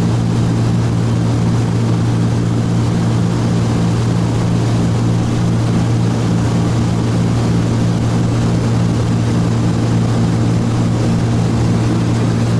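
Cessna T303 Crusader's twin turbocharged six-cylinder piston engines and propellers running steadily in cruise, heard inside the cabin as a loud, even low hum over rushing air noise.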